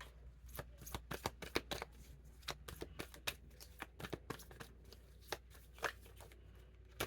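A deck of reading cards being shuffled by hand: quick, irregular soft clicks and snaps of card against card, several a second.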